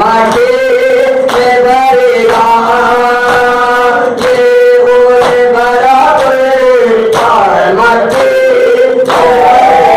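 Male voices chanting a noha, a Shia mourning lament, in a held, melodic line, with the group's chest-beating (matam) strikes landing about once a second.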